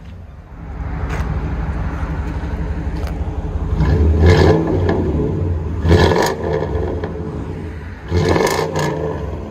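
1997 Chevy 1500's 5.7-litre V8 running through a true dual exhaust with a Flowmaster Super 10 muffler, with a steady deep rumble at idle. It is revved about three times, about four, six and eight and a half seconds in.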